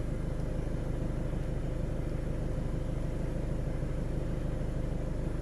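Steady low hum of a VW Golf 7's engine idling, with a faint even ripple.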